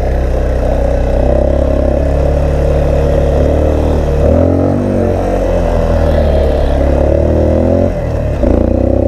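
Dirt bike engine pulling hard under load up a steep hill. Its revs dip and climb again twice, about four seconds in and again near the end. The rider feels the engine is getting hot and losing power.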